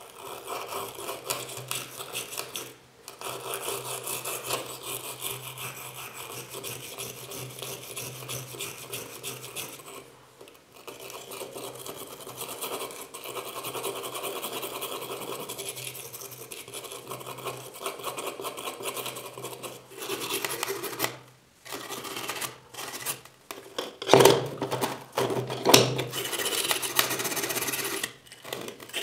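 Steel wire brush scrubbing rust off the rusty head of an old areca nut cutter: rapid back-and-forth scratching with a few short pauses, the strokes louder near the end.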